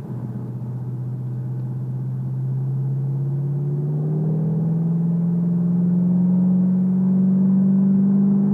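2014 Ford Shelby GT500's supercharged 5.8-litre V8 under light acceleration, heard from inside the cabin with the windows up. The drone holds steady at first, then climbs slowly in pitch and grows louder over the last few seconds.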